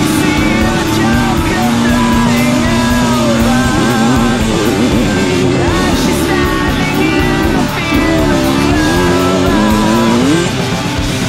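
Rock music with guitar and a sung vocal line.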